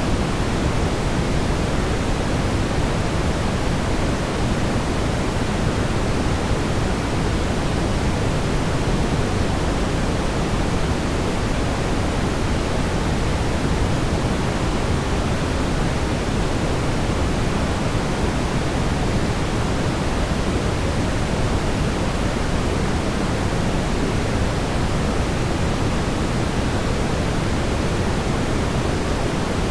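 Steady brown noise: an even, deep rumbling hiss, strongest in the low end and falling off toward the highs, with no change or events.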